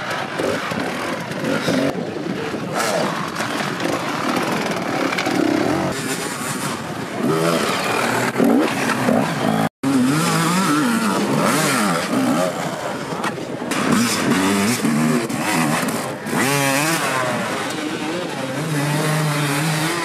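Enduro dirt bike engines revving hard up and down while straining on loose sand, with a brief dropout about halfway.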